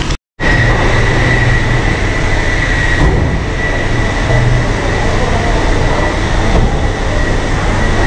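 Loud, steady mechanical rumble with a thin, steady high-pitched whine over it; the sound cuts out completely for a moment just after the start.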